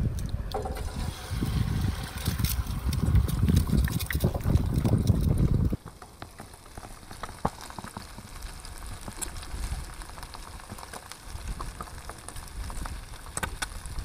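Bacon and eggs sizzling in a frying pan on a portable gas stove, with fine crackles and pops of spattering fat. For about the first six seconds a heavy, gusting rumble of wind on the microphone lies over it, then cuts off abruptly, leaving the sizzle clearer.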